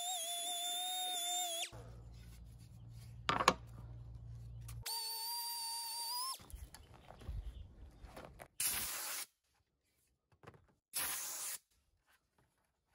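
Pneumatic random orbital sander running in two short stretches, each a steady high whine with many overtones, the second higher-pitched, with rubbing and knocks between them. Near the end, two short hisses of compressed air from an inline air blower.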